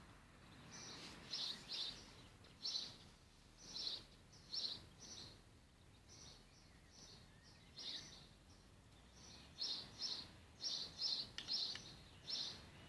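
A small bird chirping in short, high notes, often in pairs and at irregular intervals, over faint background noise.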